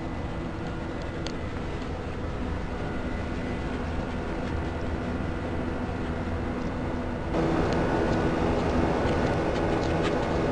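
A steady mechanical drone with a constant, multi-toned hum, which gets louder about seven seconds in.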